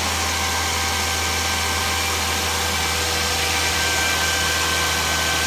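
Volvo S60 T6's 3.0-litre turbocharged straight-six idling steadily soon after a cold start, a constant hum with a thin steady whine over it.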